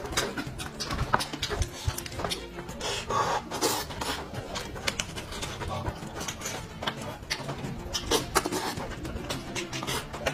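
Close-miked eating sounds: wet chewing, lip smacking and slurping, with many quick sharp clicks and breaths between bites.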